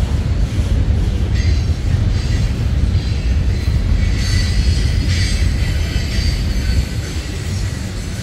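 Manifest freight train cars rolling past with a steady, loud low rumble of wheels on rail. Faint high-pitched wheel squeal grows from about four seconds in.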